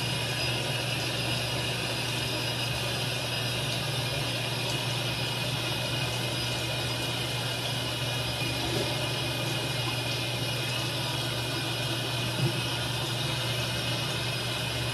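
Fan running steadily: a constant low hum under an even hiss, with one faint tap near the end.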